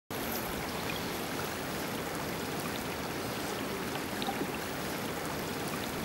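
Creek water flowing steadily, an even rush of running water with a few faint ticks.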